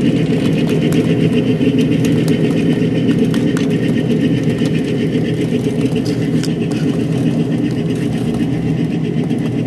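Small diesel-powered ride-on scale train running steadily past: its engine keeps up an even drone while the cars roll by, with scattered light clicks from the running gear.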